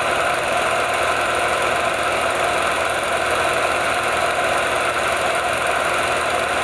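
Film projector running: a steady mechanical whir with a fast, even clatter that cuts in abruptly.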